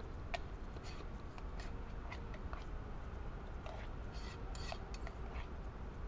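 Metal spoon clinking and scraping in a small metal camping pot: a scatter of light clicks, several close together around the fourth and fifth seconds, over a steady low rumble.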